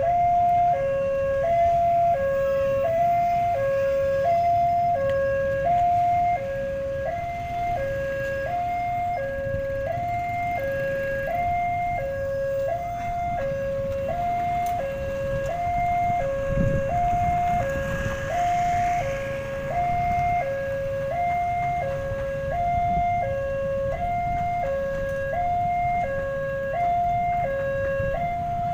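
Railway level-crossing warning alarm sounding a repeating electronic two-tone chime, alternating low and high about once a second, which signals an approaching train. Under it is the low rumble of road traffic, swelling once in the middle as a vehicle passes close by.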